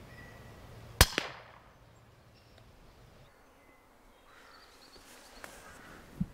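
A single air rifle shot: one sharp crack about a second in, with a second, fainter crack a fraction of a second after it.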